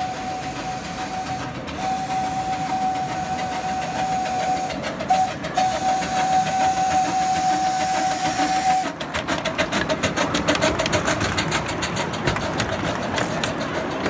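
Steam locomotive whistle on one steady pitch: the end of a long blast, then a long, a short and a final long, the pattern of the grade-crossing warning signal. The last blast cuts off about nine seconds in. The passing train follows with a fast rhythmic beat and hiss.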